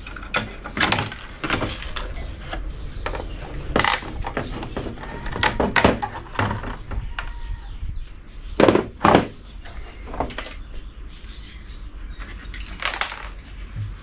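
Irregular knocks and clatter of a circuit board being pulled from a sheet-metal chassis and bumped down against it, with a few louder clunks around the middle.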